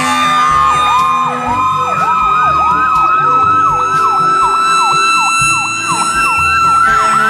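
Fire engine's electronic siren on a fast yelp: a tone sweeping up and down about three times a second, with a steady high tone held alongside it.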